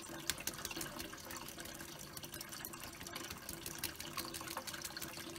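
Kitchen faucet running steadily into a plastic bowl in the sink, with scattered small clicks over the flow.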